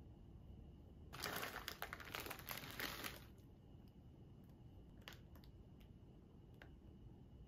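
Plastic bag of chocolate chips crinkling as it is handled, for about two seconds starting a second in. A few faint clicks follow.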